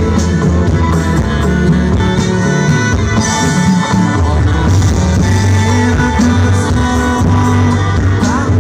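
Live band playing over a stage PA during a soundcheck: drums, electric guitar and keyboard, with a steady loud bass line.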